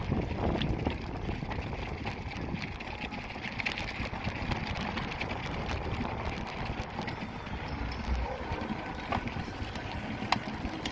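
Rumble and rattle of a bicycle rolling over a cobblestone street, with a few sharp clicks from the bike.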